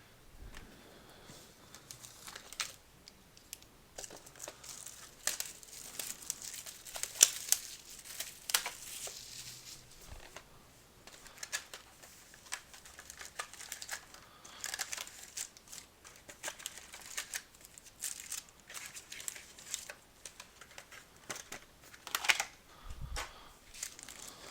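Plastic wrapping on a trading card box and its packs crinkling and tearing as they are opened by hand: irregular crackles and rips, with a few louder tears along the way.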